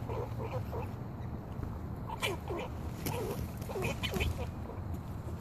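Fox squirrels calling: an irregular string of short, squeaky call notes, two or three a second, with a few faint clicks.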